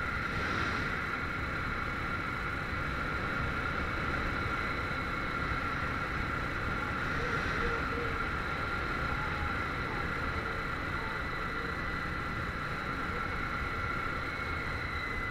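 Harley-Davidson Street 500's V-twin engine running steadily under way, mixed with wind and road noise as picked up by a helmet chin-mounted camera.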